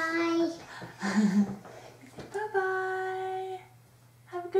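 A young child's voice sounding long, steady sung 'aah' notes: one trailing off just after the start, another held for about a second midway, and a short one near the end.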